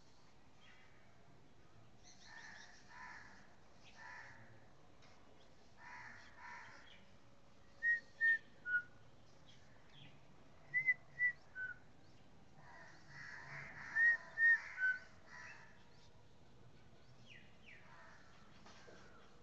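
Short clear whistled notes in groups of three, two at the same pitch and then a lower one, repeated three times a few seconds apart. Fainter, harsher calls come in between.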